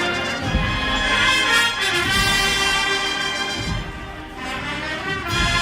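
A Holy Week procession band of trumpets, trombones and drums playing a processional march. It eases off slightly about four seconds in, then swells again near the end.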